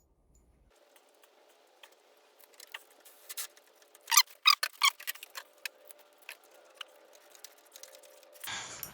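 Irregular light clicks and taps of hand tools working the handlebar riser bolts, with a quick cluster of sharper clicks about four to five seconds in, over a faint steady hum.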